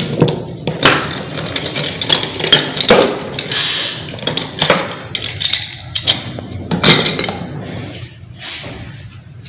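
Small hard objects (shells, pebbles and sticks) clicking and knocking against each other and the table as they are picked up and set down in a pile. The knocks come irregularly, a few each second, and thin out near the end.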